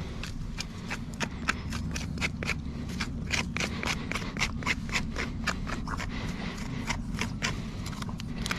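A farrier's hand tool scraping at a horse's hoof in quick, short, repeated strokes, about three to four a second, over a steady low hum.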